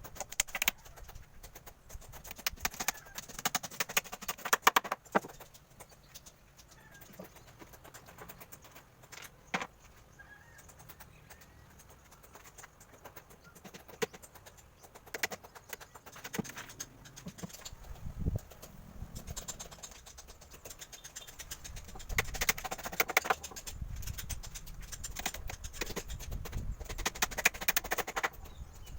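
Scattered knocks and taps of carpentry work on a wooden table being rebuilt with 3/4-inch plywood, in clusters near the start and again near the end.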